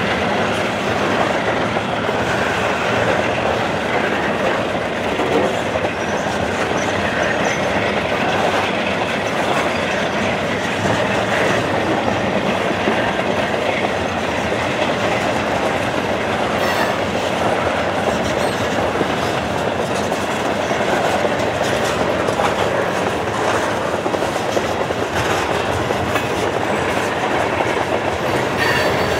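Freight train of covered grain hopper cars rolling past, its steel wheels running steadily over the rails.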